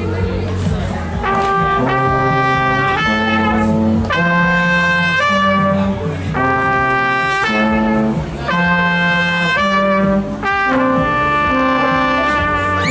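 Trumpet and trombone playing together, a phrase of held notes in two parts during a sound check.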